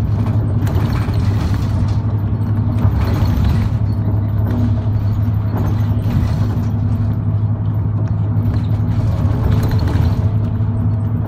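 Route bus interior while driving: a steady low engine drone, with frequent small rattles and creaks from the cabin fittings.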